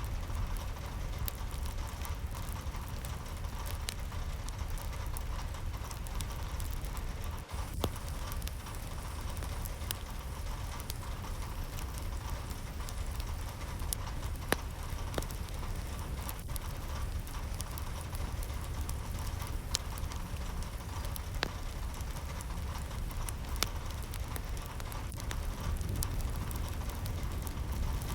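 Steady rainfall, with many separate drops ticking sharply on a surface over a constant low rumble.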